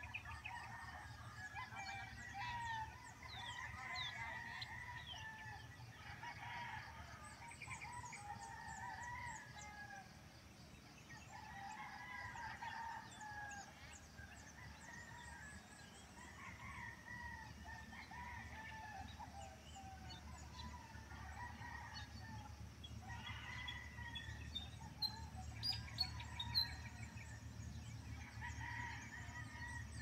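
Faint roosters crowing again and again, calls a second or two long coming every few seconds, with small birds chirping higher up. A few sharp clicks near the end.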